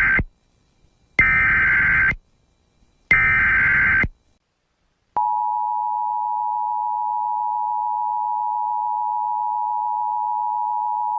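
Emergency Alert System header: the last of one data-tone burst and then two more bursts of warbling data tones, each about a second long. About five seconds in, the steady two-tone EAS attention signal (853 and 960 Hz) sounds, announcing an emergency alert.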